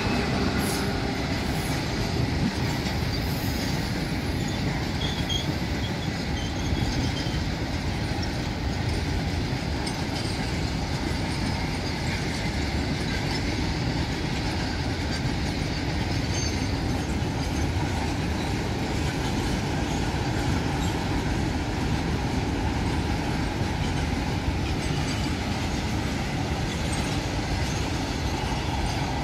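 Train running past: a steady rumble of wheels and coaches on the rails, unbroken throughout.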